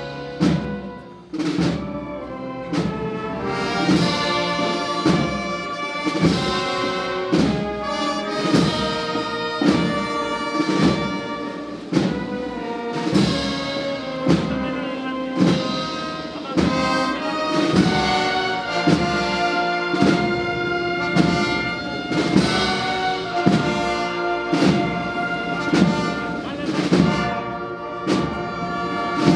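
Processional band playing a Holy Week march: brass melody over a steady drum beat.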